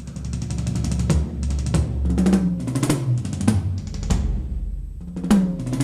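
Triggered electronic drum-kit sounds from a Roland TD-27 module, played on an acoustic Yamaha Stage Custom kit fitted with Jobeky Fast-Fit triggers. The drummer plays a busy pattern of kick, snare and cymbal hits with tom fills, the tom strikes stepping down in pitch from high tom to floor tom.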